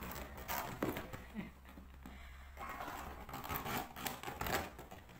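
A kitten's claws catching and scratching on cloth as it climbs: a string of faint, irregular scratches and rustles.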